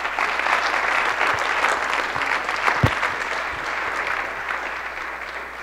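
Audience applauding, the clapping fading away toward the end, with a single low thump about three seconds in.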